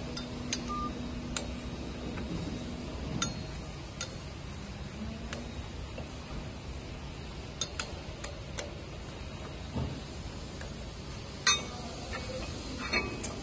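Scattered metal clinks and knocks as steel parts of a press frame are handled and fitted by hand. The loudest knock comes about eleven seconds in, over a steady low background hum.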